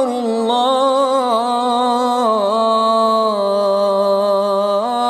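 Arabic nasheed sung without instruments: a single voice holding long, slowly wavering notes in a drawn-out melisma between the sung lines of 'Allahu akbar'.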